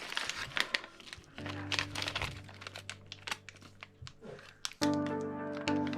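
Crinkling of packaging and small clicks of parts being handled, with background music coming in and getting louder near the end.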